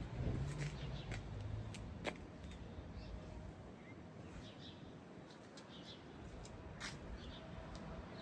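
Small birds chirping in short, scattered calls, with a few sharp clicks.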